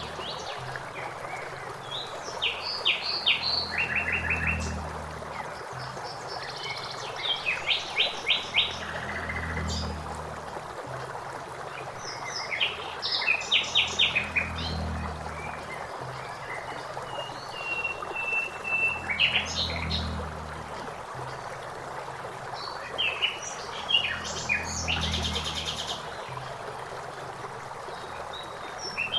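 Songbirds, a blackbird among them, singing short phrases and rapid trills every few seconds over the steady rush of flowing water.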